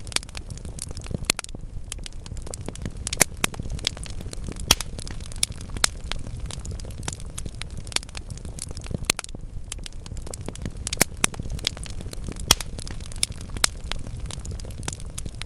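Wood fire burning in a fireplace: logs crackling steadily with irregular sharp pops over a low rumble of the flames.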